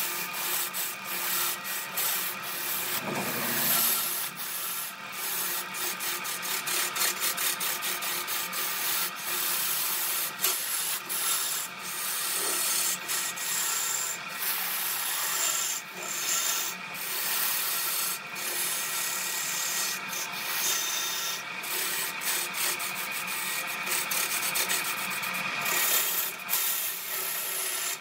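Turning tool cutting into a large spinning wooden blank on a wood lathe: a steady rough scraping hiss as shavings are peeled off, broken by many brief pauses in the cut.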